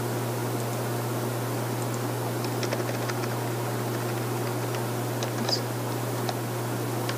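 Scattered light clicks of computer keys over a steady low room hum.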